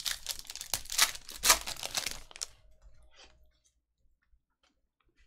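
A Panini Mosaic trading-card pack wrapper being torn open and crinkled by hand, with sharp crackles about one and one and a half seconds in. It then gives way to a few faint clicks of the cards being handled, and near quiet.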